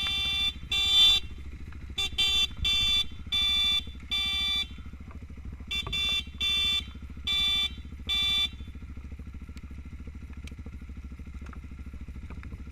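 A vehicle horn tooted about a dozen times in quick short beeps, in clusters, stopping about two-thirds of the way through. A motorcycle engine idles with a low steady throb underneath.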